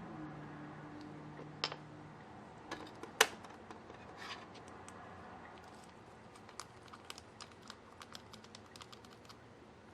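Slime being worked by hand: a scatter of small sticky clicks and pops, one much louder click about three seconds in, then a quick run of light clicks in the second half.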